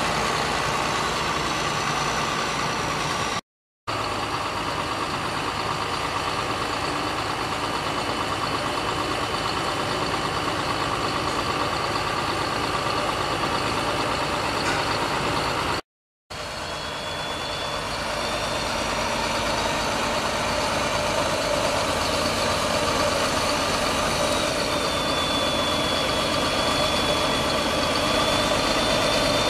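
Manitou telehandler's diesel engine running steadily, with a faint high whine over it. The sound drops out twice into brief silence, once early and once about halfway through.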